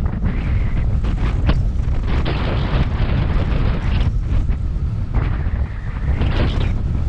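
Strong wind buffeting the microphone aboard a sailboat under sail, a constant heavy rumble, with surges of rushing, hissing water and spray that come and go every second or two.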